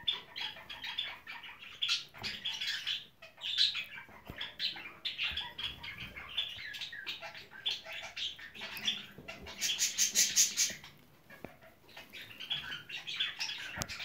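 Lovebirds chattering in quick, shrill chirps, with a louder burst of rapid calls about ten seconds in.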